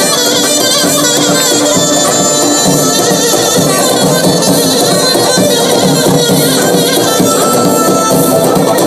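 Loud, continuous folk-style music.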